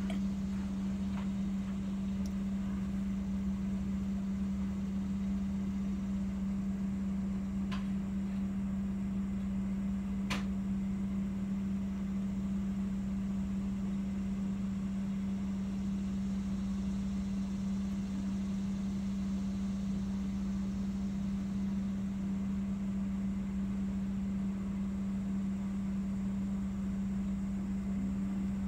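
Steady machine hum holding one low pitch, with two faint clicks about eight and ten seconds in.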